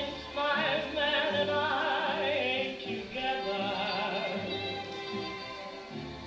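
Recorded song: a singer's melody with heavy vibrato over instrumental accompaniment with a low bass line.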